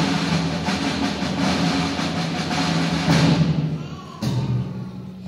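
School percussion ensemble playing sustained timpani rolls on held pitches, with rolled drums ringing above. The roll swells about three seconds in and fades, then a fresh stroke on a lower timpani note comes near the end.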